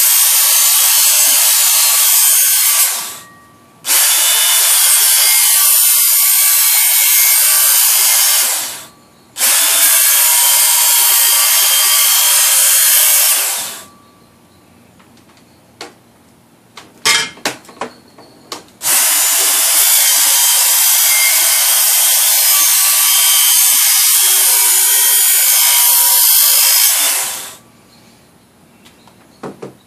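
Handheld Work Sharp belt sharpener running, its abrasive belt grinding along the steel edge of a shovel blade. It runs in four stretches of several seconds each, with two brief stops, a longer pause in the middle with a few light clicks, and a final stop near the end.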